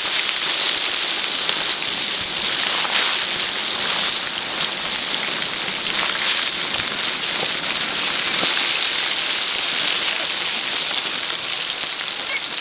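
Pieces of field rat coated in minced lemongrass and chili deep-frying in a large wok of hot oil: a steady, dense sizzle with fine crackling.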